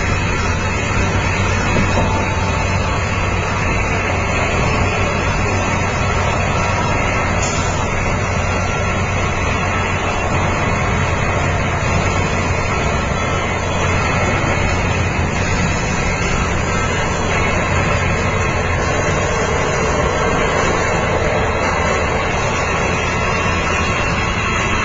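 Steady road noise inside a car cruising at highway speed: tyre and wind noise over a low engine hum.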